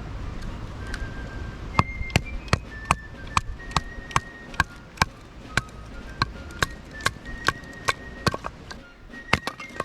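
Knife chopping on a cutting board: a steady run of sharp knocks, about two to three a second, starting about two seconds in, over background music.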